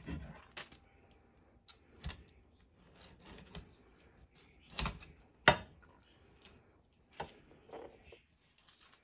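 Kitchen knife clicking and knocking against a wooden cutting board as a fish is cleaned and cut up: scattered irregular taps, with two sharper knocks about five seconds in.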